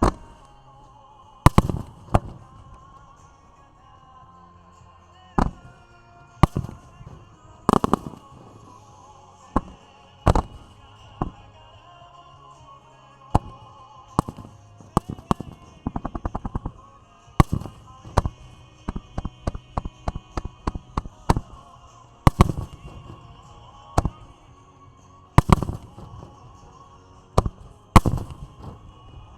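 Aerial fireworks shells bursting: a string of sharp, irregularly spaced bangs, each trailing off in an echo. About two-thirds of the way through comes a rapid run of cracking reports.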